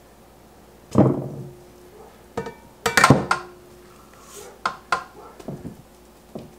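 Mixing bowls and a kitchen utensil knocking and clanking as cookie dough is handled: a heavy thud about a second in, a cluster of ringing clanks around three seconds, then a few lighter knocks.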